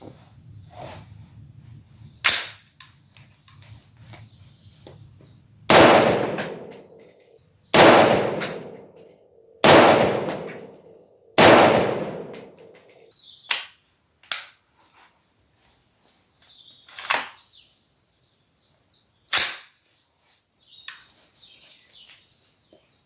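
Smith & Wesson M&P15 Sport II AR-15 rifle firing .223 Remington: four loud shots about two seconds apart in the middle, each ringing out for over a second. Weaker, shorter gunshot cracks come before and after them.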